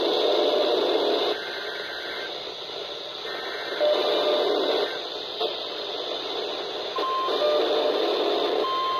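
Weather-radio receiver sounding harsh, noisy bursts that switch on and off every second or two, then a steady single-pitch alarm tone just above 1 kHz, briefly about seven seconds in and again starting near the end. This is typical of a NOAA Weather Radio weekly test's 1050 Hz warning alarm tone.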